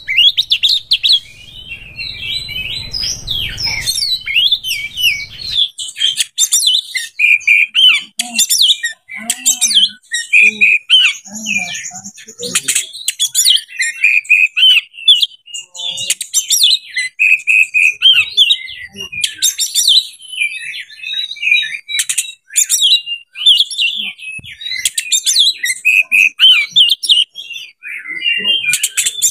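Oriental magpie-robin (kacer) singing an unbroken, varied song of loud whistled phrases, rapid chirps and sharp high notes: the excited song of a male in breeding condition.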